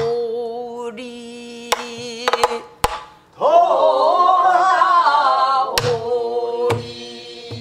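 A woman sings pansori in long held notes, some with a wide vibrato, to the line "언제 다시 돌아오리". Between and under the phrases come several sharp strokes of a stick on a buk barrel drum.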